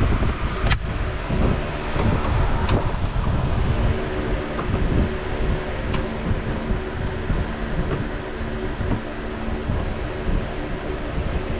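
A steady mechanical hum with a low rumble and a few steady tones. A few sharp clicks or taps sound about a second in, near three seconds and at six seconds.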